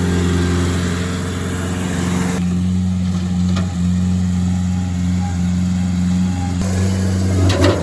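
An engine running at a steady speed, a low, even drone that changes abruptly twice. A few sharp clatters come near the end.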